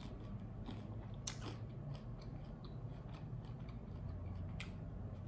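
A person chewing a mouthful of toasted sourdough topped with salad and cheese, with moist chewing and a few sharp crunches, the loudest about a second in and another near the end.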